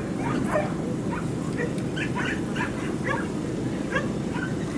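Dogs barking and yipping in short, quick calls, about two a second, over a steady low background rumble.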